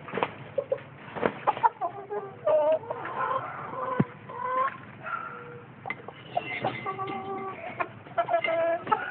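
Chickens clucking, a run of short calls one after another, with a few sharp clicks, the sharpest about four seconds in.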